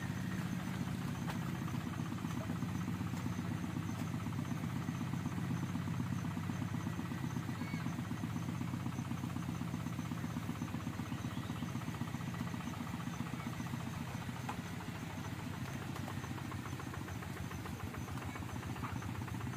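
A small engine running steadily with an even, rapid low pulse.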